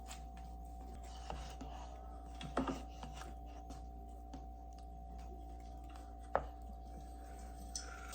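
A few light knocks and taps over a steady low hum, the sharpest about six seconds in.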